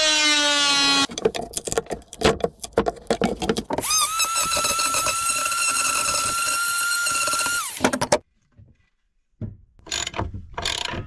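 Oscillating multi-tool cutting a notch into a timber beam: a falling whine, then rough, uneven chatter as the blade bites, then a steady high whine for about four seconds that cuts off. Near the end a ratchet wrench clicks in quick runs as a bolt is turned.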